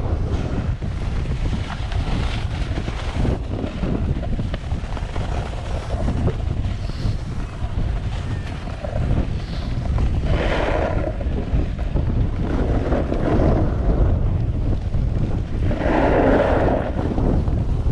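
Wind buffeting an action-camera microphone during a downhill ski run, a steady low rumble with louder swells of noise about ten seconds in and again near the end.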